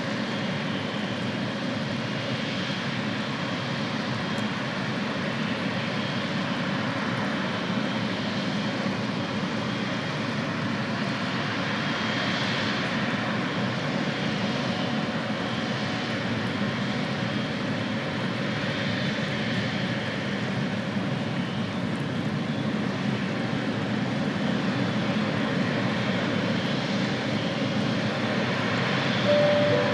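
Airliner engines running steadily at the airport: a rushing noise with a faint high whine, slowly swelling in waves.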